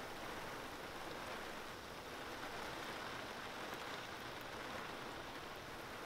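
Steady rain falling on a pond and the grass around it, an even hiss with no change.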